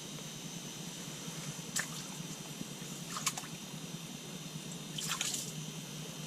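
A few faint, scattered drips of water over a steady low hum.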